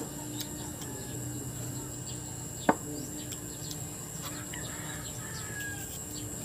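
Countryside ambience: a steady high-pitched insect drone with faint bird chirps, and a single sharp knock about two and a half seconds in.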